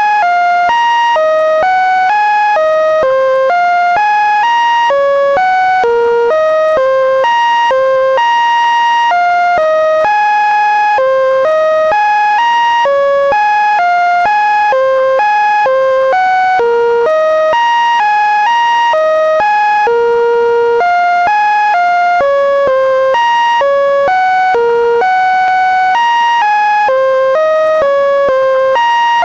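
Computer-generated buzzy electronic tones playing an endless, tuneless run of notes that hop up and down in pitch a few times a second, the Linux kernel's data rendered as sound.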